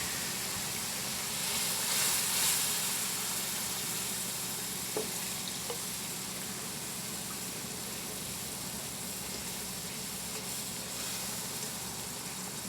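A hot roux of flour and pork-chop grease sizzling in the pan as milk is poured in slowly and stirred into gravy. The sizzle swells louder about two seconds in, and there are two light clicks about five seconds in.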